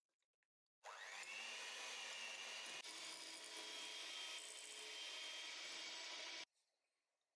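Electric hand mixer beating softened butter in a glass bowl. Its motor whines up to speed as it starts about a second in, runs steadily, and cuts off suddenly near the end.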